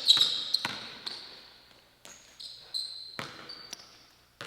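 Basketball bouncing on a gym floor: about six irregular bounces, each ringing in the hall. Short high-pitched squeaks, typical of sneakers on the court, sound in between.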